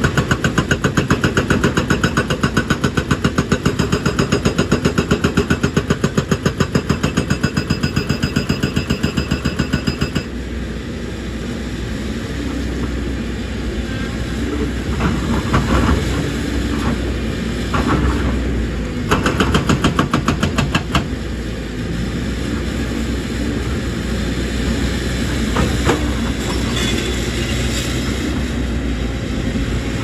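Hydraulic rock breaker on a JCB tracked excavator hammering rock in a rapid, even train of blows over the running diesel engine. The hammering stops suddenly about ten seconds in. The engine runs on, with a few short bursts of hammering later.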